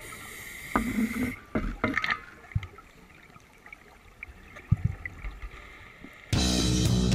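Underwater scuba sounds: a hiss of regulator breathing and bubbles, with scattered knocks and bumps of dive gear against rock as a sidemount diver squeezes through a tight spot. Background music comes in near the end.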